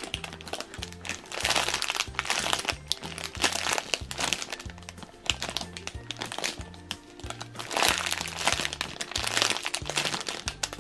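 Clear plastic packaging crinkling as small squishies are squeezed and turned in the hands, in irregular surges, over background music with a stepped bass line.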